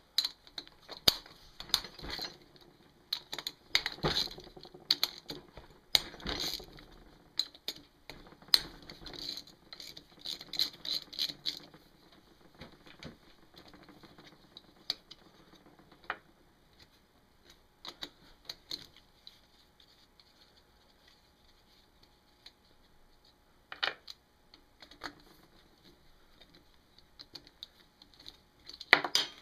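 Hand tools clicking and clattering against the engine as the valve cover of a 1979 Honda ATC110 is unbolted: dense rapid clicks for about the first twelve seconds, then scattered single knocks with quiet gaps.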